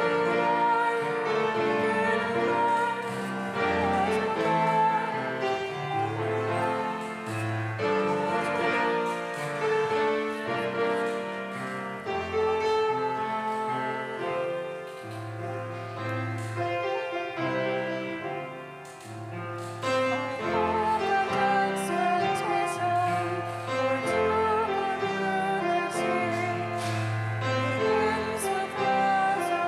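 A hymn sung with instrumental accompaniment, sustained sung notes over steady bass notes, moving from the refrain into the next verse after a brief dip about two-thirds of the way through.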